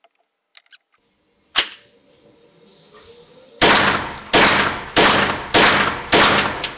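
Kel-Tec SUB2000 semi-automatic carbine in 9x21 firing five shots at a steady pace, about 0.6 s apart, starting a little past halfway through. Each crack rings on in the enclosed range booth.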